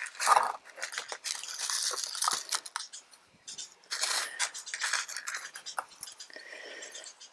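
Small pebbles poured from a plastic scoop into a plastic pot of potting soil, rattling and clicking in several bursts over the first five seconds. Scattered lighter clicks follow as fingers press and settle the pebble top-dressing around the succulent.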